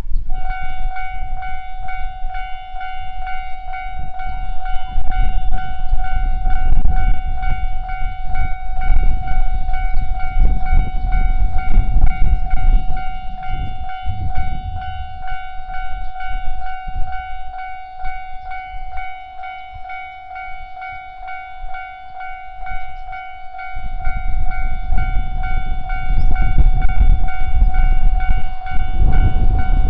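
Japanese railway level-crossing alarm switching on just after the start and ringing its standard electronic warning tone. A heavy low rumble sits underneath, easing off in the middle and building again in the last few seconds.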